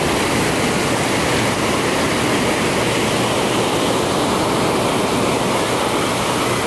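Ocean surf breaking and washing onto the beach, a steady rushing sound.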